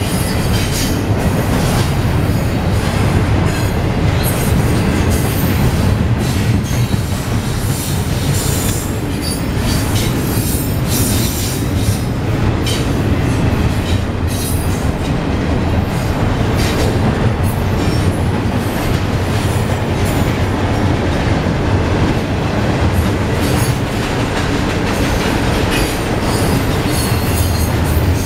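Norfolk Southern double-stack intermodal freight train's cars rolling past: a loud, steady rumble of steel wheels on the rails, with many brief high-pitched noises over it.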